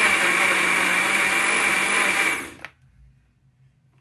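Electric countertop blender running at speed, churning strawberries with cream and sugar into a thick paste before the milk goes in. It is switched off a little past halfway and the motor winds down quickly to near quiet.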